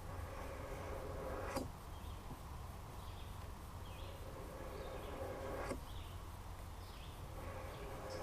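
Knife blade drawn slowly along a Fallkniven DC4 sharpening stone: two long grating strokes, each ending in a sharp click, about a second and a half in and again near the middle. Faint bird or insect chirps sound in the background.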